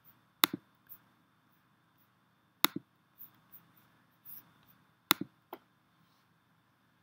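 Computer mouse button clicking three times, each click a sharp press-and-release pair, with fainter ticks and handling noise in between.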